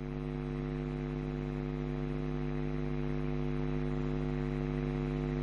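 Steady electrical mains hum with a faint hiss in the audio line, unchanging throughout.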